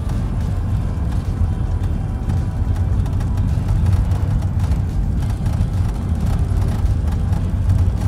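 Steady low rumble of a moving car heard from inside the cabin, with music playing over it.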